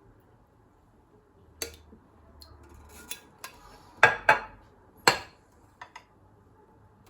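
Kitchenware clinking and knocking: about eight separate sharp taps, the loudest a pair about four seconds in and another about a second later.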